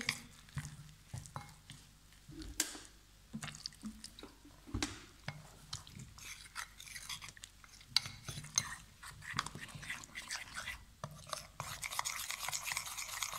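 Steel spoon stirring gram-flour and rice-flour batter in a bowl, with irregular clicks and scrapes of the spoon against the bowl. About two seconds before the end the stirring turns quick and steady as the batter becomes smooth and wet.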